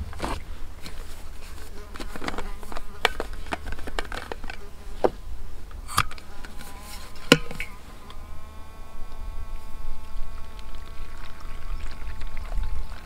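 Rustling and sharp clicks of food packaging and utensils being handled, then a steady buzzing tone from about eight seconds in.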